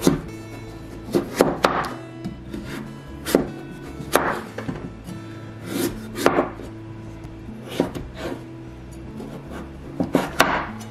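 A kitchen knife cutting the skin off kabocha squash on a wooden cutting board: irregular sharp knocks as the blade goes through the rind and hits the board, about a dozen over the stretch, some in quick pairs.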